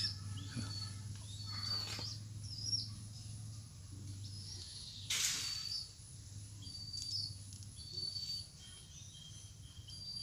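Small birds chirping in the background, short high calls repeating throughout, over a low steady hum. A brief rustling noise about halfway through.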